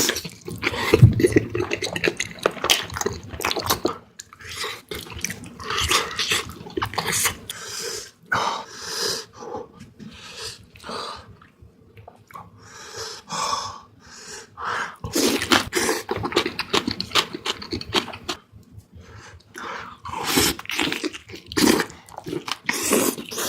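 Close-miked wet chewing and lip-smacking of spicy beef feet, in clusters of clicky mouth sounds with short pauses between.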